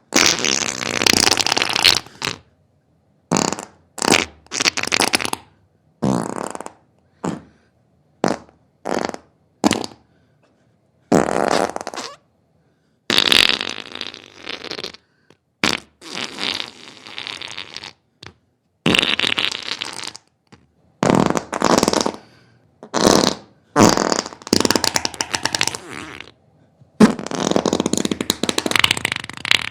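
A string of about twenty farts, one after another with silent gaps: some are short blips, others are long sputtering ones lasting a second or two.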